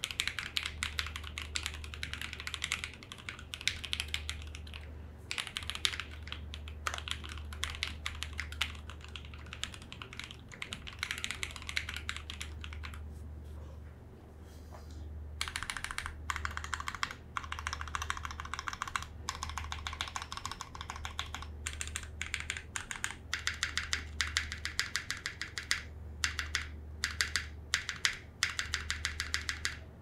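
Fast typing on a freshly built 60% custom mechanical keyboard with lubed Alpaca linear switches, tuned and lubed stabilizers, a tape mod and plate foam: a dense run of key clacks with brief pauses about five seconds in and around thirteen to fifteen seconds in.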